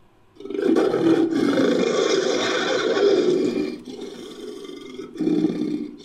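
Manticore creature roar, a sound effect mixed from lion and monster roars: one long roar of about three seconds, then a lower growl and a shorter second roar near the end.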